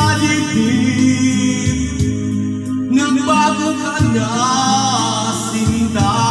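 A man singing a slow song through a microphone over instrumental backing music, his voice gliding and holding long notes.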